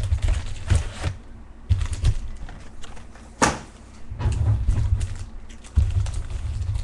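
A sealed box of baseball cards being opened and handled on a table: scattered dull knocks, clicks and rustling of cardboard and wrapping, with one sharp click about three and a half seconds in.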